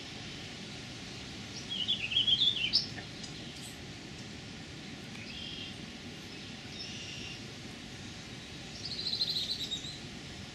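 Red-winged blackbirds calling at the nest: a loud burst of quick, up-and-down chattering notes about two seconds in, fainter short calls in the middle, and a rapid trill near the end, over a steady background hiss.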